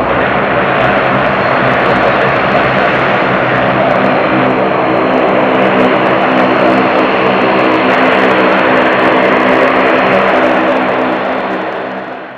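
Boeing 737-700's CFM56-7B turbofan engines running as the airliner rolls out on the runway after landing: a steady, loud rushing noise with a hum of several steady tones beneath it. The sound fades out near the end.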